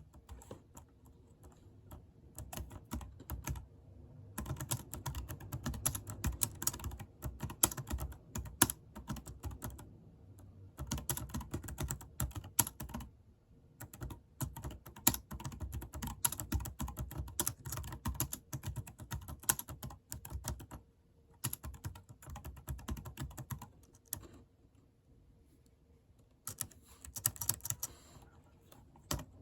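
Computer keyboard being typed on quickly: runs of rapid keystrokes lasting a few seconds each, broken by short pauses.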